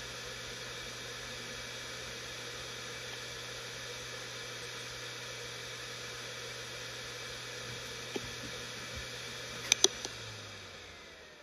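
Samsung SpinPoint F1 7200 RPM hard drive spinning with a steady hiss and low hum. Two sharp clicks sound near the end, then the drive spins down, its whine falling in pitch as it fades.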